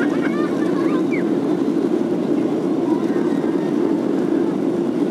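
Steady engine drone heard inside the cabin of a Boeing 737-700 as it moves onto the runway, its CFM56-7B engines running at low power before the takeoff roll. Faint voices are heard in the first second.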